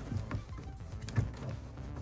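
Background music, with one sharp knock a little over a second in.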